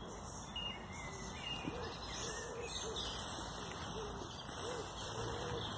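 Birds chirping and singing over a steady outdoor hiss, with high chirps and a lower wavering call repeating throughout.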